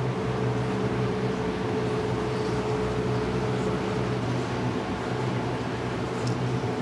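Steady mechanical hum aboard a boat at sea: several held low tones over an even hiss, running unchanged.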